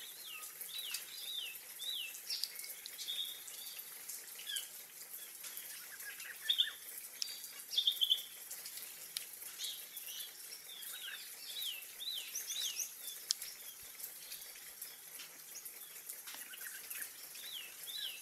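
A flock of small finches, Gouldian finches among them, calling with short, high chirps, many in quick succession and a few louder bursts of calls, over a faint steady hiss.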